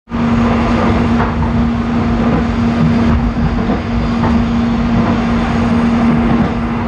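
Running noise inside a Railink airport train carriage, an electric multiple unit, on the move: a steady rumble of wheels and track with a constant mid-pitched hum over it.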